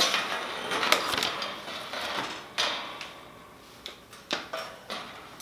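Iron bird cage parts clanking and rattling as panels are fitted together: a series of sharp metal knocks with scraping between them, busier in the first half.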